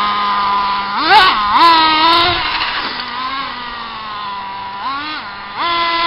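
Traxxas Rustler RC truck's motor holding a steady hum, with short revs that rise and fall about a second in, around two seconds in, and twice near the end as the throttle is blipped.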